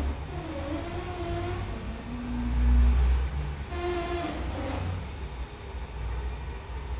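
Small electric drive motors of dome-shaped robots whirring as they move about, their pitch wavering and shifting as they start, stop and turn, over a low steady hum. The whirring swells to its loudest a couple of seconds in.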